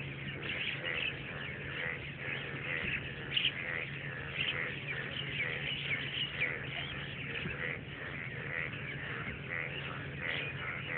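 Dawn chorus: many birds calling at once, a dense, unbroken stream of short overlapping chirps and calls, over a steady low hum.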